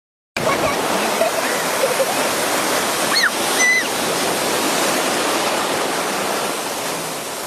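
Ocean surf rushing and washing steadily, with faint voices and two short high cries about three seconds in.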